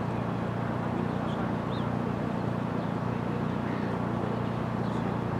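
Steady low outdoor background rumble, with a couple of faint high chirps about a second and a half in.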